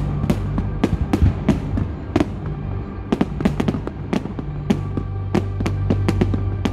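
Aerial fireworks exploding in an irregular run of sharp bangs, about three a second. There is a short lull a little over two seconds in, then a quick cluster of reports.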